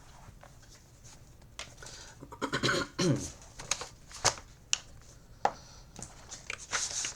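Handling noise on a desk as a work mat is fetched and laid out: scattered sharp clicks and knocks, a short sound falling in pitch about three seconds in, and rustling near the end.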